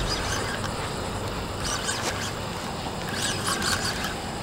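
Spinning fishing reel giving a few short zipping sounds as a hooked fish is fought and reeled in, over a steady outdoor hiss.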